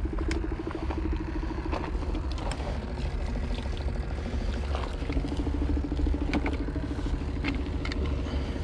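A small engine running steadily with a fast, even pulse, over a low rumble, with a few scattered clicks and knocks.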